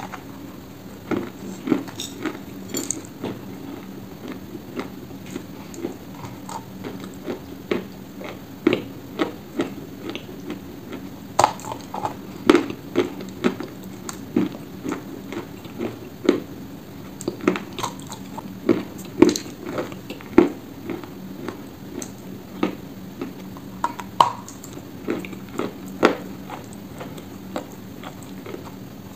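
A chunk of Ural black edible clay being bitten and chewed: a long run of sharp, irregular crunches and clicks, a few to several a second.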